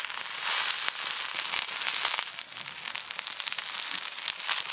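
Bottle-gourd-leaf parcels of spiced fish roe sizzling and crackling in a little oil on a hot tawa, the sizzle swelling for the first couple of seconds as they are laid in.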